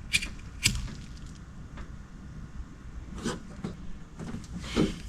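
Four short sharp clicks or taps, two in the first second and two more in the second half, over faint handling noise: hand work on a wire splice being finished with heat-shrink tubing.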